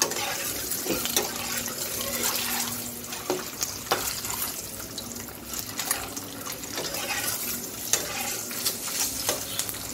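Spice-coated boiled eggs frying in oil in an aluminium wok, a steady sizzle, with a metal spatula clicking and scraping against the pan now and then as the eggs are turned.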